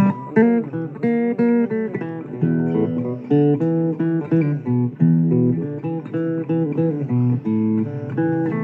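Blues guitar playing an instrumental passage: a run of plucked notes and strums over lower notes, with a few bent notes about half a second in.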